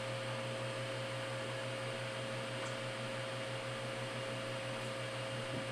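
Steady electrical hum with an even hiss and a faint constant high tone: the background hum of the recording and the running station equipment, with no other events.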